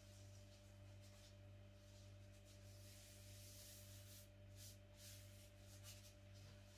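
Near silence: room tone with a low steady electrical hum, and faint soft scraping from hands working at the table about four to five seconds in.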